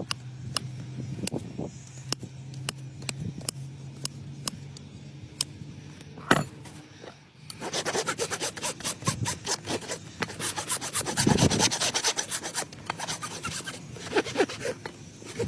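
Farrier's rasp filing a horse's hoof in quick, continuous back-and-forth strokes, starting about halfway through. Before that comes a run of light, evenly spaced clicks over a low steady hum, with one sharper click just before the rasping begins.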